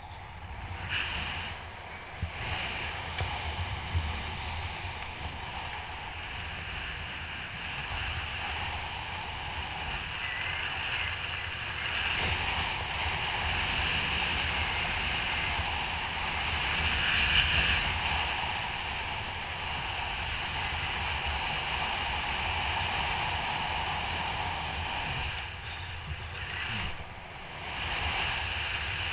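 Wind rushing over a camera microphone during a descent under an open parachute canopy, a steady rushing that dips briefly near the end.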